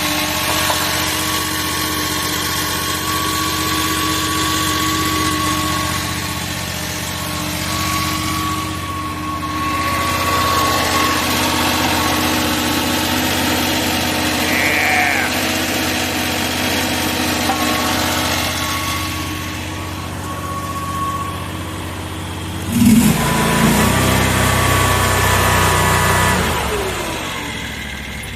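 Mini skid steer's small engine running steadily at a hand-set throttle. About three-quarters of the way in it gets suddenly louder and deeper for a few seconds, then fades down near the end.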